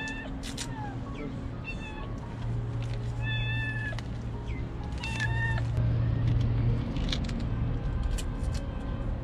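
Young stray kitten meowing: three short, high meows a second or two apart.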